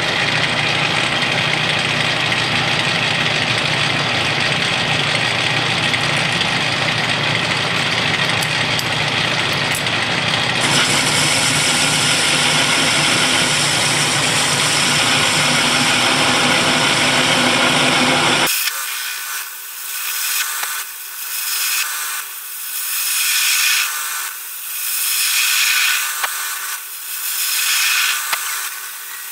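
Atlas metal lathe running while a carbide insert faces off a cast-iron workpiece, giving a steady cutting noise. About 18 seconds in, the sound changes suddenly, turning thinner and swelling and fading every second or two.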